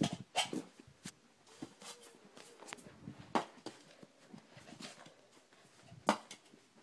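Handling noise: scattered soft knocks, thumps and rustles as stuffed toys are moved about on a carpet and the camera is jostled. The sharpest knocks come right at the start, about three and a half seconds in and about six seconds in.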